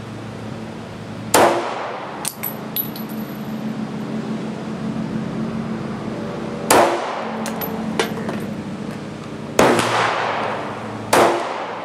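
SIG Sauer P229 Equinox pistol in .40 S&W fired four times at an uneven pace: one shot about a second and a half in, another near seven seconds, and two more close together near the end. Light metallic clinks, typical of ejected brass casings landing, follow some of the shots.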